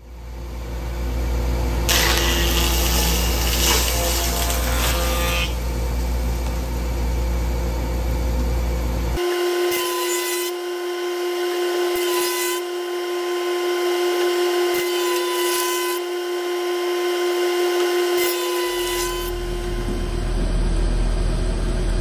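Jointer running as a rough, weathered cherry log is pushed across its cutterhead to flatten one face: a steady machine hum with louder stretches of the knives cutting into the wood. The sound changes abruptly about nine seconds in and again near the end.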